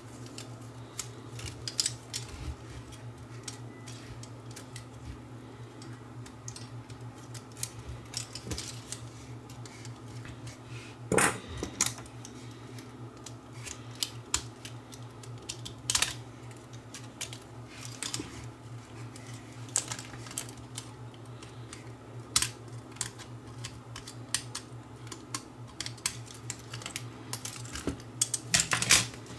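Small clicks and taps of a camcorder's plastic and metal parts and a small screwdriver being handled during disassembly, with a few sharper clacks about 11, 16, 22 and 29 seconds in. A steady low hum runs underneath.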